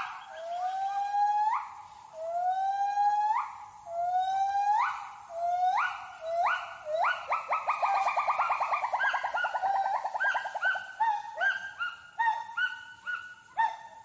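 Gibbon song: long, loud hoots, each sliding upward in pitch, repeated about every one and a half seconds. About seven seconds in they run into a fast warbling trill, and then into shorter, quicker notes.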